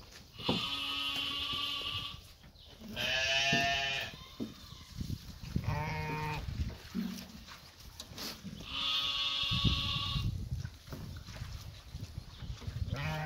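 Sheep bleating: four long bleats a few seconds apart from different animals in a flock, the second the loudest, with another starting at the very end.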